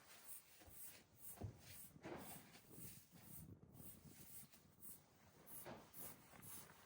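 Near silence with faint, irregular rustling and light knocks, and one soft low thump about a second and a half in.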